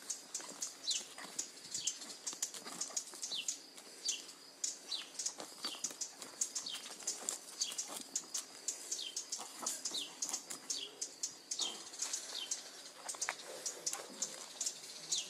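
Small songbirds chirping over and over: short, high chirps that fall in pitch, roughly one or two a second, with faint scuffling of the cats wrestling in the dirt.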